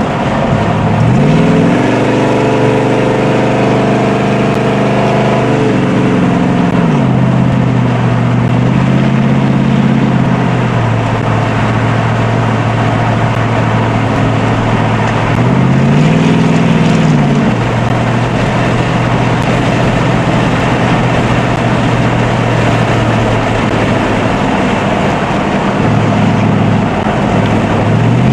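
A 1973 Dodge Charger's 400 big-block V8 under way at speed, heard from inside the car: the engine pitch climbs and drops several times, rising about a second in, falling near six seconds, then rising and falling again around nine to eleven and sixteen to eighteen seconds, with a steady rushing noise underneath.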